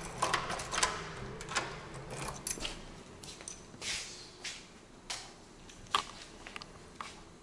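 Key turning in an apartment door lock, with a run of sharp metal clicks and rattles from the key and the lever handle in the first couple of seconds. Then the door swings open, followed by scattered soft knocks and steps, with a sharper click about six seconds in.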